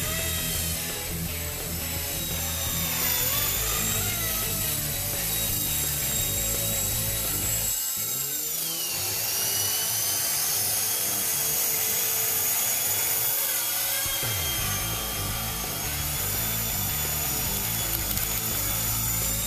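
Esky Honey Bee V2 electric RC helicopter running: a high steady motor and rotor whine with a gear buzz, its pitch dipping and rising again as the throttle changes, most clearly about eight seconds in.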